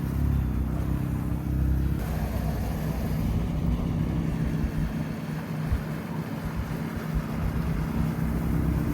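A car driving, with a steady low engine hum and road rumble.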